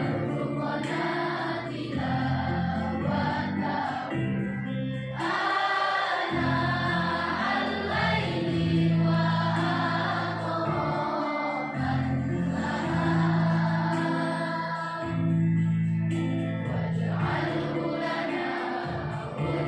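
A girls' choir singing together over an instrumental accompaniment whose low chords are held and change every second or two.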